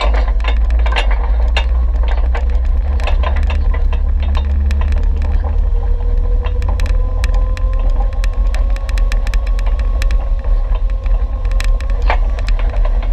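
Off-road vehicle driving down a rocky dirt trail. A heavy low rumble runs under frequent clicks and rattles from gravel and loose parts. From about halfway in, a steady whine holds until near the end.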